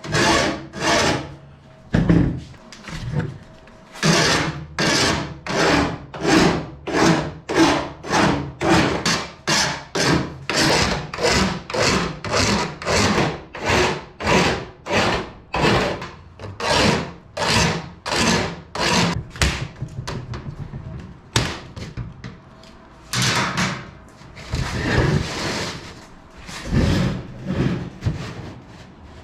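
Hand file scraping back and forth over the edge of aluminium aircraft parts, deburring sharp edges. It runs at about two strokes a second, then a few slower strokes near the end.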